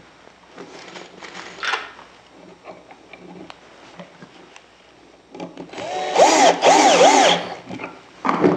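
Cordless drill driver driving a pocket-hole screw into a wooden chair frame joint, in two short runs with a brief pause. The motor's whine rises and falls under load. Quiet knocks of wood being handled come before it, and a short knock near the end.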